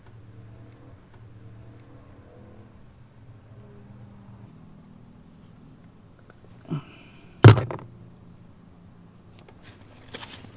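A single sharp knock about seven and a half seconds in, just after a softer one, from plastic parts being handled and fitted during the wiring of an add-on fuse box. A faint steady high-pitched tone sits underneath.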